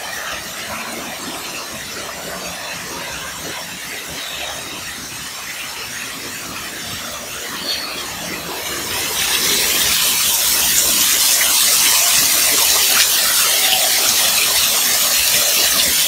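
Indoor waterfall splashing down close by, a steady rushing hiss of falling water and spray that grows louder about nine seconds in.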